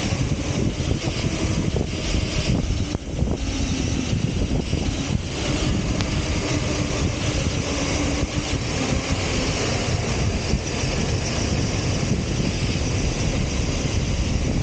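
Six-wheeled RC truck driving fast over desert sand: steady motor noise with wind rushing over the onboard camera's microphone.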